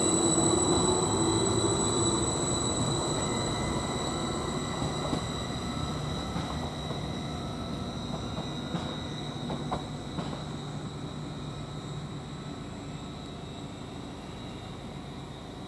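Greater Anglia Class 755 bi-mode multiple unit pulling away and receding, its engine and rail noise fading steadily.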